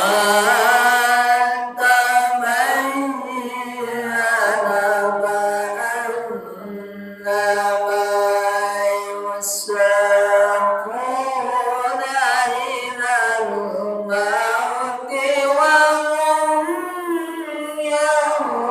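A single voice chanting without accompaniment in long, wavering, ornamented melodic phrases, with short pauses for breath between them.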